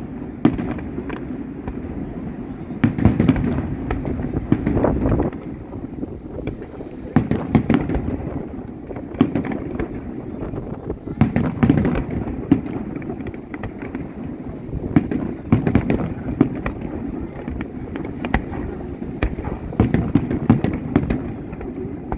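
Fireworks display: a dense, continuous barrage of bangs and crackling, with louder clusters of reports every few seconds.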